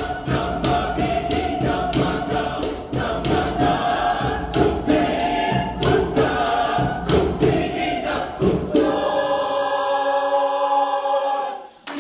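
Mixed vocal ensemble singing over a steady beat of sharp rhythmic knocks. About nine seconds in the knocks stop and the voices hold a long final chord, which breaks off just before the end.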